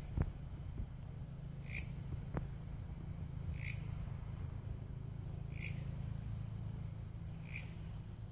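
A belalang kerek, a grasshopper-like insect, calling: a short chirp repeated about every two seconds, four times, over a steady low hum.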